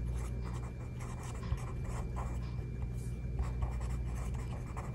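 Pen writing on lined notebook paper: a run of short, irregular scratching strokes as handwritten words are formed, over a low steady hum.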